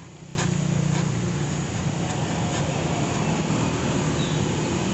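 Oxy-acetylene welding torch burning with a steady, loud rushing noise while it welds a steel bracket onto a motorcycle muffler; the noise starts suddenly about a third of a second in.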